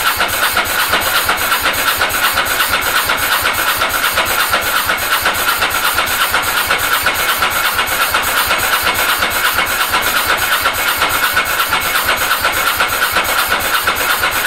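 Ducati ST4's V-twin engine turned over on its electric starter without firing, fuel pump and ignition coils disconnected: a steady, even cranking beat of about three pulses a second over the starter motor's whine. It is being cranked to build oil pressure before the first start.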